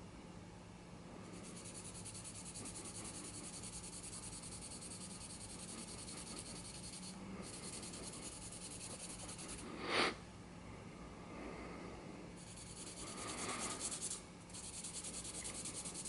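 Small piece of sandpaper rubbed back and forth by hand on a vulcanite pipe stem, wet-sanding off the green oxidation: a faint, steady scratchy rubbing. One brief louder sound about ten seconds in.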